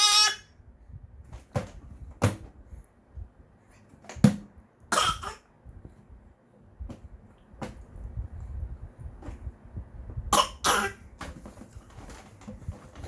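A ten-month-old baby coughing: a series of short, separate coughs spread over several seconds, the loudest right at the start.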